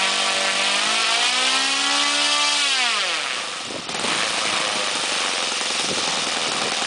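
Saito FG-20 single-cylinder four-stroke gas model airplane engine swinging a 16x6 propeller, running fast at a steady pitch that rises a little. It is then throttled back, its pitch falling steeply until, about four seconds in, it settles into a low, uneven idle.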